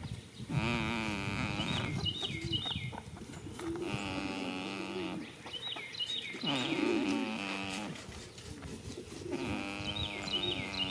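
A goat snoring in its sleep: a drawn-out, pitched snore on each breath, repeating about every two to three seconds.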